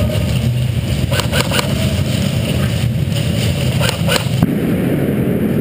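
Steady low rumble with a scattering of sharp cracks, about seven in all: airsoft guns firing across the arena, and BBs striking cover.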